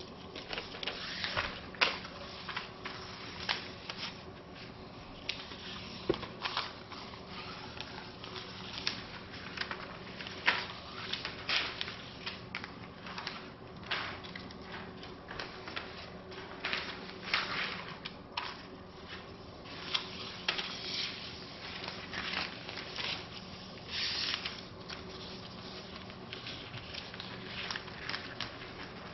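Plastic being handled close by: irregular crinkles, clicks and taps as blade film and hollow plastic lightsaber tubes are worked, over a faint steady hum.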